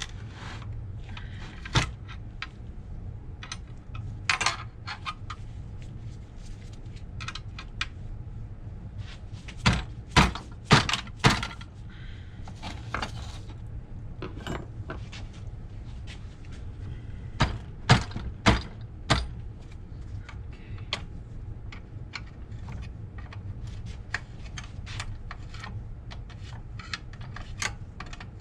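Hand work with a wrench on the nuts of a Rolls-Royce Phantom III front brake backing plate assembly: scattered sharp metal clicks and clinks of tool, nuts and parts, with louder clusters of clanks about ten seconds in and again near eighteen seconds, over a low steady hum.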